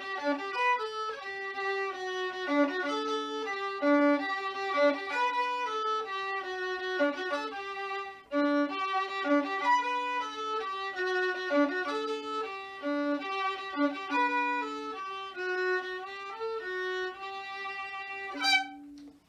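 Solo violin playing a waltz tune with a distinctly Polish flavour, one bowed melody line of short and held notes, closing on a loud final note near the end.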